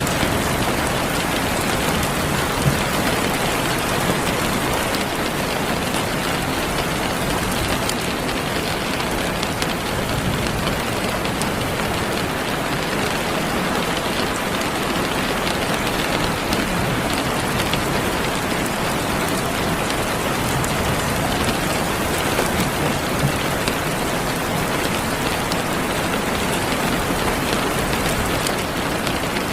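Heavy rain falling steadily, a constant hiss with scattered sharper drop hits.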